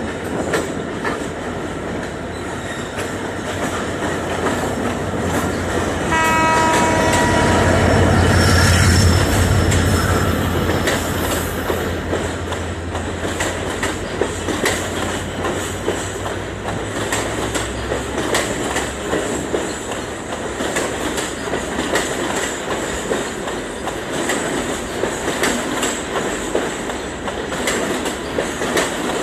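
A diesel train running past. Its horn sounds for about two seconds some six seconds in while the engine's low rumble swells, then the wheels go on clicking over the rail joints.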